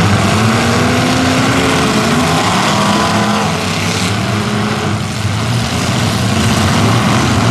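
Several demolition derby cars' engines running loud together, their pitch rising and falling as they rev.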